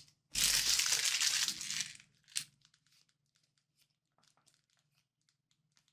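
Foil wrapper of a Pokémon card booster pack being torn and crinkled open for about a second and a half, followed by a single sharp click and then faint light ticks.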